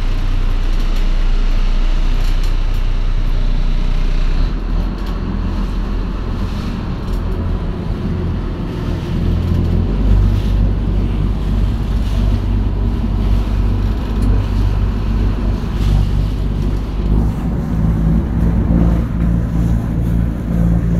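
A dhow's engine runs with a steady low drone, with water washing along the wooden hull and wind on the microphone.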